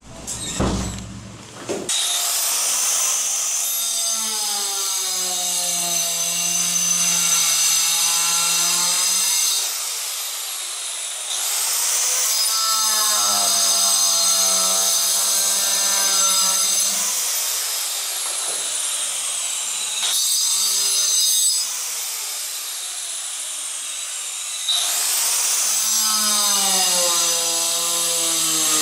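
Handheld electric tile saw with a diamond blade cutting ceramic tile. The motor whine starts about two seconds in, and its pitch sags in three long cuts as the blade bites into the tile, with a short extra burst between the second and third.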